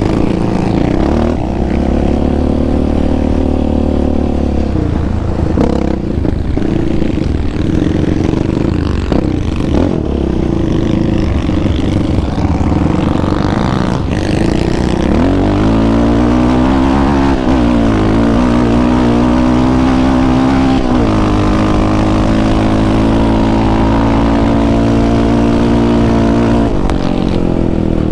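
Yamaha Raptor 700R quad's single-cylinder engine running under throttle, its note holding, dropping and climbing again as the rider speeds up and eases off. Wind rushes on the microphone throughout.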